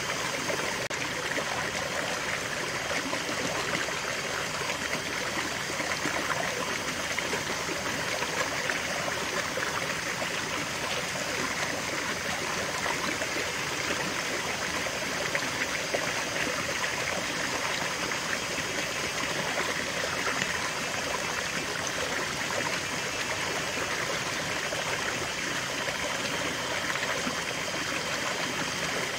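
Shallow rocky stream running steadily, water splashing and trickling over a small cascade between boulders into a clear pool.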